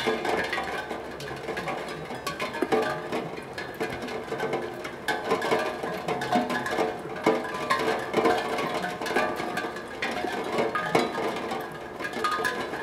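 Raindrops striking a steel tongue drum, setting its tuned tongues ringing in a steady, random scatter of overlapping notes.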